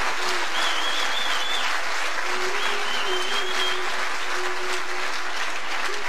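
Large hall audience applauding steadily. A faint, thin wavering tone runs through the clapping, higher twice in the first half.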